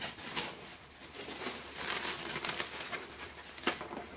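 Clear plastic packaging bag crinkling and rustling as it is handled and pulled open, with irregular sharp crackles, a louder one near the end.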